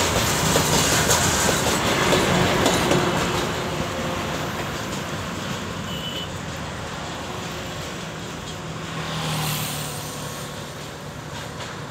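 Freight train wagons rumbling and clattering past on the rails. The noise fades after about three seconds as the end of the train draws away, with a brief swell about nine seconds in.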